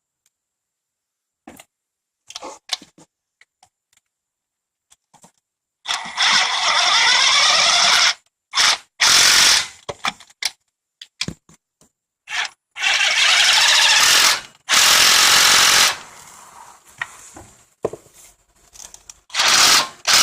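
Milwaukee 1/2-inch impact wrench hammering in about five loud short bursts, driving home the starter motor's mounting bolts, after a few light clicks.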